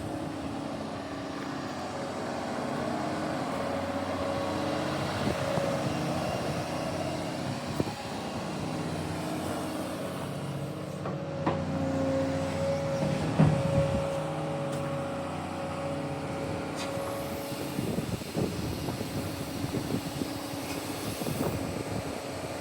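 Komatsu PC210LC-11 crawler excavator's diesel engine running steadily, with a steady high tone above the engine note. A few clanks are heard, the loudest about 13 seconds in.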